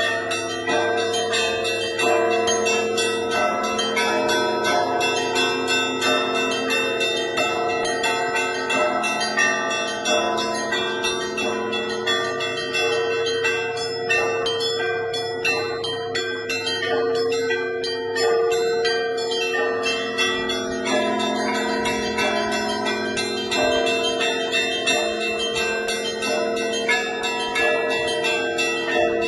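Several church bells rung together in a continuous Russian-style peal (zvon). Quick, frequent strikes on the smaller, higher bells sound over deeper bells whose tones hang on.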